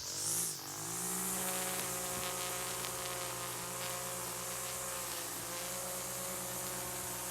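A small engine speeding up over about the first second, then running at a steady pitch.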